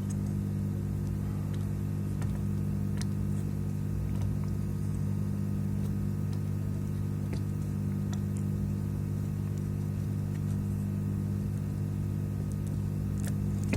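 Steady hum of a small electric motor running on the repair bench during desoldering, even and unchanging, with a few faint clicks over it.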